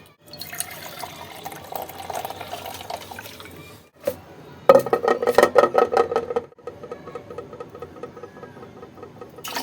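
Herbal decoction (kadha) being poured through a tea strainer into glasses, liquid splashing and some spilling over. The pour gets louder for about two seconds just before halfway, with the glass ringing.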